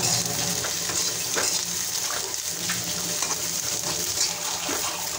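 A metal spatula stirring whole green chillies as they dry-roast without oil in a kadhai: a steady hiss with light scrapes against the pan now and then.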